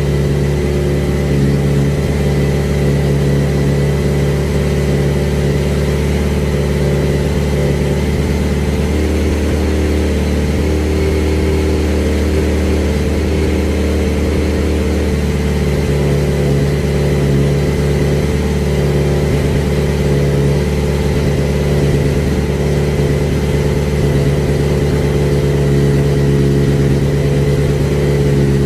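Honda CBR1100XX Blackbird's inline-four engine idling steadily on its first start-up, the note shifting slightly for a few seconds about ten seconds in.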